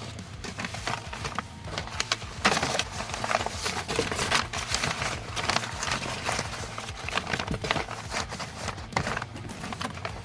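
Packing materials being handled: a run of irregular rustles, crinkles and small knocks as items and packaging are moved about and wrapped.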